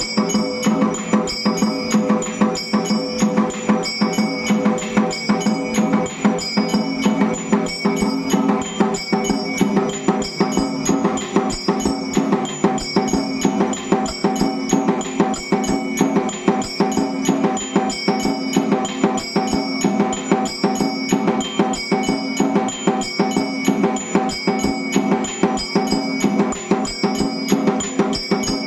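Electric temple music machine striking bells and a drum in a steady, repeating rhythm, with ringing metallic tones over the beat.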